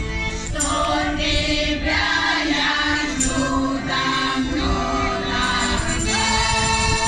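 Women's folk choir singing a traditional Russian folk song in held, sustained phrases, with accordion accompaniment, heard through the stage sound system.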